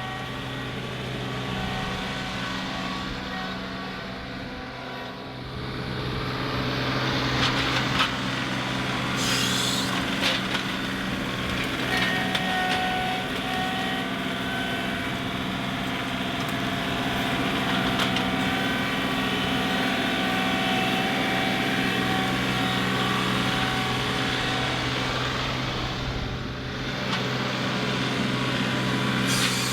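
John Deere 2038R compact tractor's three-cylinder diesel engine running steadily under work, coming up in speed and loudness about six seconds in, with a few scattered knocks and clunks.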